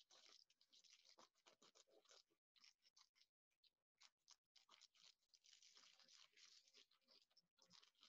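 Very faint scissors cutting through bubble wrap: an irregular run of crinkling, scratchy snips of the plastic, broken by a few short gaps.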